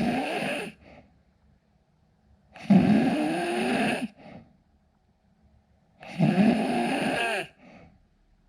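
A man snoring in his sleep: three long snores about three seconds apart, each followed by a short, softer breath.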